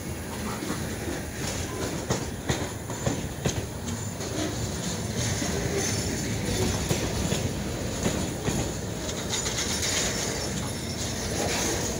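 Freight train rolling past, with irregular clacks of wheels over rail joints over a steady rumble.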